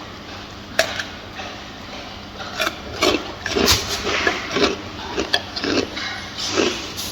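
Gorilla eating: two sharp snaps about a second in, then irregular crunching and chewing, two or three bites a second.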